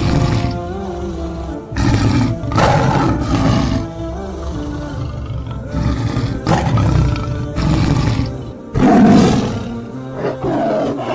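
Lion roars, several in turn, over background music.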